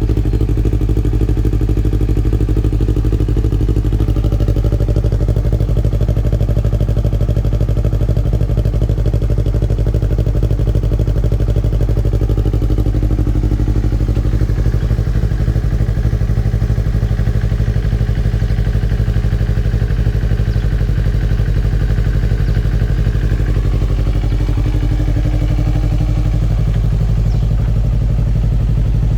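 Yamaha MT-03 motorcycle engine idling steadily, its pitch and loudness barely changing.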